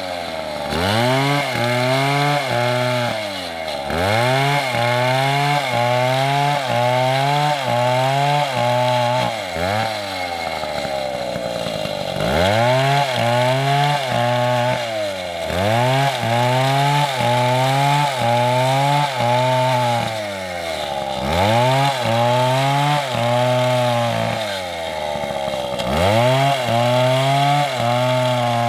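A large MS720 chainsaw cutting wood at full throttle. Its engine note sags under load and picks back up about every two seconds as the chain bites into the wood, with a longer, deeper drop around ten seconds in.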